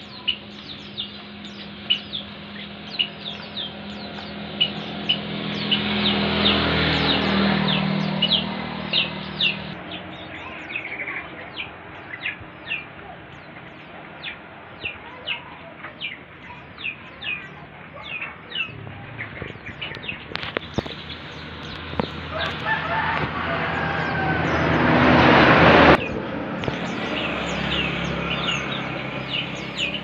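Many caged birds chirping, with short high calls scattered throughout. Under them, a low steady hum swells about six seconds in, fades, then builds again and cuts off suddenly about 26 seconds in.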